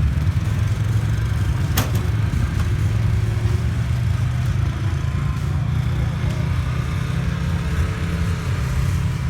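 B-Mod dirt track race car engine running steadily with a heavy low rumble, with one sharp click or knock about two seconds in.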